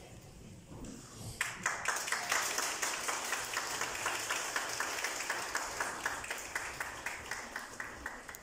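Audience applauding. The clapping starts suddenly a little over a second in and thins out near the end.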